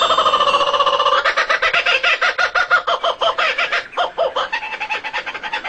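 Bird calls: a fast run of repeated harsh pitched notes, easing off after about four seconds.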